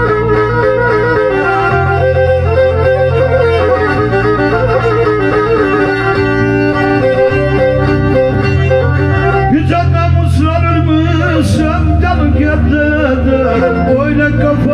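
Black Sea kemençe (Karadeniz kemençesi) bowed in a quick, ornamented folk tune, over a low bass that shifts note every couple of seconds.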